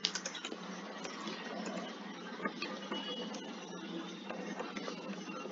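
Typing on a computer keyboard: light key clicks at an irregular pace over a steady background hiss.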